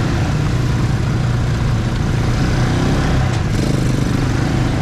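Cruiser motorcycle engine running steadily at low road speed, heard from the rider's seat.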